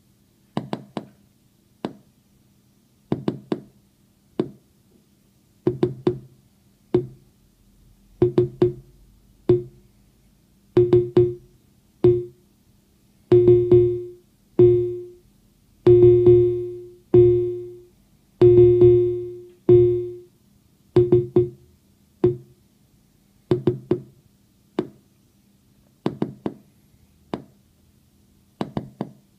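Mutable Instruments Braids synthesizer module playing a repeating low plucked note in a rhythmic trigger pattern. A control voltage sweeps the envelope's decay time, so the notes ring longer toward the middle and are clipped short again near the end.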